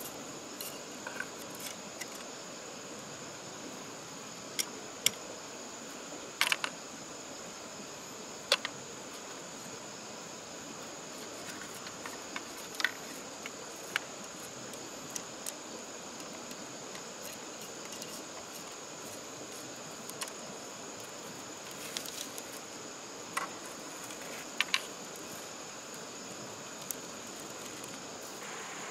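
Insects droning in one steady high pitch over the even hiss of a stream, with scattered sharp clicks and knocks from handwork at camp.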